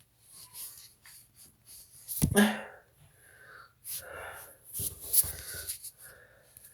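A person sneezing: a loud sneeze about two seconds in and another about five seconds in, each after sharp, wheezy in-breaths.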